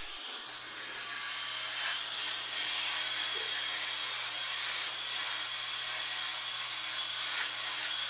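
Electric shaver buzzing steadily as it is run over the neck and chin, with a low hum under a high hiss.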